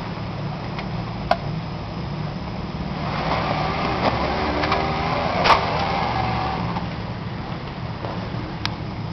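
Jeep Wrangler's engine running under load as it climbs a rocky, muddy bank off-road, getting louder from about three seconds in and easing off again near seven. Three sharp knocks sound during the climb.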